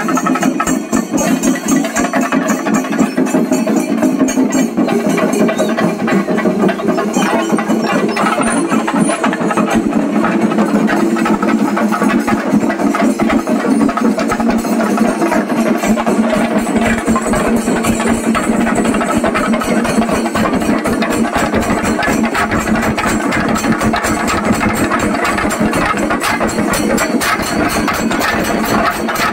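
Singari melam ensemble of Kerala chenda drums beaten with sticks in a fast, dense, continuous rolling rhythm.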